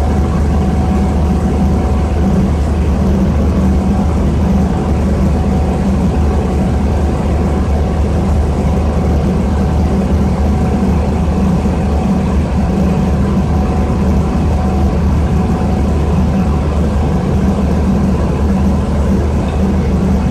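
Orion VII transit bus's Detroit Diesel engine running steadily, heard from inside the passenger cabin: a constant low drone with a faint steady whine above it.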